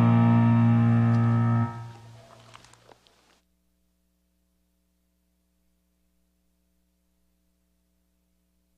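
Choir and accompaniment holding the final chord of an anthem. The chord is cut off about two seconds in and rings away over the next second or so, leaving near silence with a faint steady hum.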